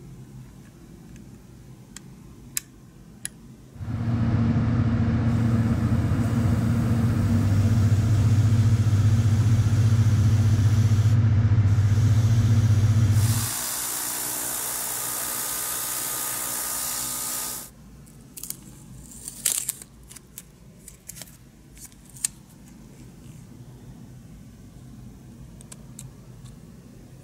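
A small airbrush air compressor runs with a steady low hum for about ten seconds, then cuts out while the airbrush hisses for about four seconds. Before and after come light clicks and taps from handling small plastic model parts.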